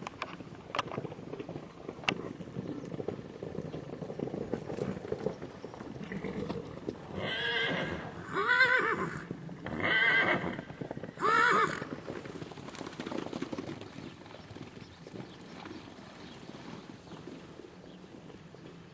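Hoofbeats of horses galloping over soft grass, then four loud whinnies in quick succession about halfway through, each rising and falling in pitch.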